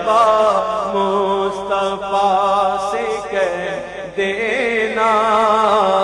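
A voice reciting an Urdu naat (salam) in long, wavering sung lines with heavy vibrato, held over a steady low hum; the line breaks briefly about four seconds in, then resumes.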